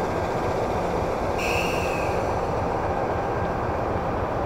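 Diesel engine of a standing train running with a steady, dense rumble. A short high-pitched tone cuts in about a second and a half in.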